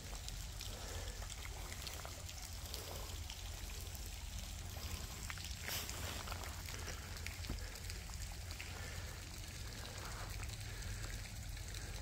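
Steady heavy rain falling, with many single drops tapping close by.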